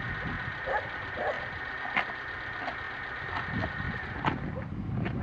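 Dogs barking on and off in short, scattered barks.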